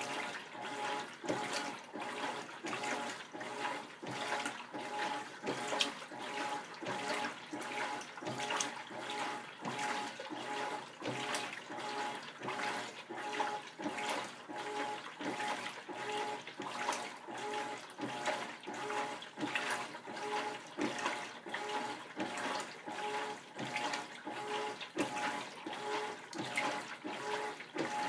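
Whirlpool WTW4800 belt-drive top-load washer agitating a full tub of water and laundry: rhythmic swishing and sloshing with each back-and-forth stroke of the agitator, over a steady hum from the machine.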